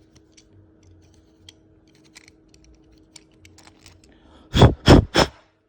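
A 5/16-18 hand tap being turned by hand in a stripped steel thread: faint scattered metal clicks and ticks as it cuts. Near the end come three short, loud rushes of noise in quick succession.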